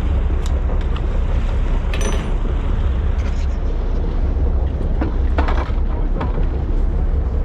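Steady low rumble with wind buffeting the microphone aboard a fishing boat, broken by a few brief knocks.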